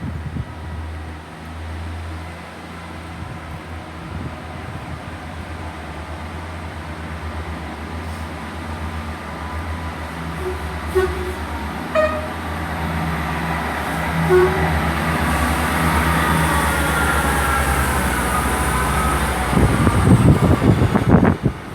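Class 158 diesel multiple unit's engines running while it stands at the platform, growing louder in the second half as the unit prepares to pull away. A few short tones sound about 11 to 14 seconds in, and wind buffets the microphone near the end.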